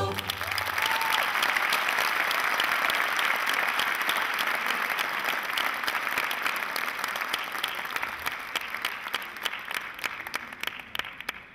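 Audience applauding just after the music stops, a dense clapping that thins and fades away over the last few seconds.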